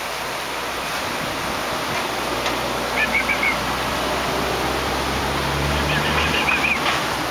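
Steady outdoor background hiss, with two brief runs of quick bird chirps, about three seconds in and again around six seconds.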